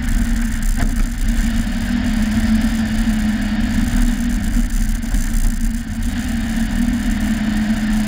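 A car driving, heard from a camera mounted on its hood: a steady engine drone over low road rumble.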